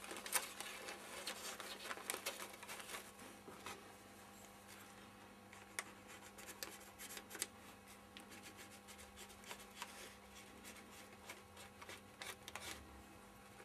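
Faint scratching and irregular small ticks of a pencil tracing a wing outline on thin tissue paper laid over a balsa wing frame, with light handling rustles of the tissue, over a faint steady hum.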